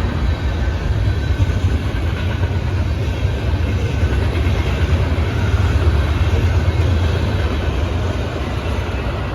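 Train running on rails: a steady, loud rumble, heaviest in the low end, easing slightly near the end.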